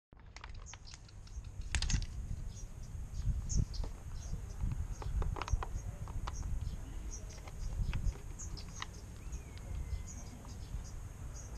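Irregular plastic clicks and knocks as a hose and its connector are handled and fitted inside the plastic storage box of a Kärcher OC 3 mobile cleaner, over a low rumble.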